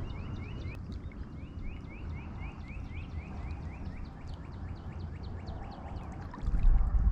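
Wind rumbling on the microphone, with a gust near the end. Over it, a bird gives a quick series of short rising chirps, about four or five a second, for the first three seconds or so.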